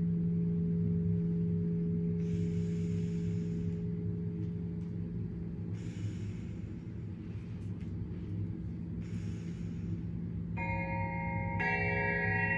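A steady low ringing drone like a sustained bowl or bell tone, with three soft hissing swells over it. Near the end, two bell-like chimes are struck about a second apart and ring on.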